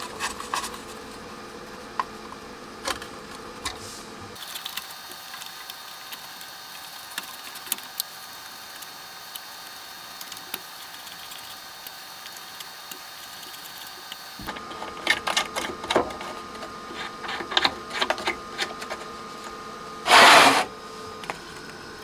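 Scattered small clicks and light knocks of metal parts and tools being handled as the metal covers of an audio preamp's chassis are fitted, with a short loud scrape about twenty seconds in.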